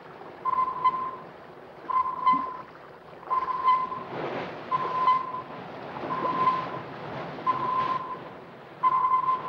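A warship's ASDIC (sonar) transmitting during an attack run: a short ping at one steady pitch repeats about every one and a half seconds, seven times, over a rushing wash of sea noise.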